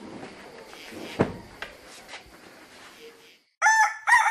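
A rooster crowing, starting near the end after a few seconds of low background noise with a faint knock or two; the crow opens with short notes and goes into a long held note.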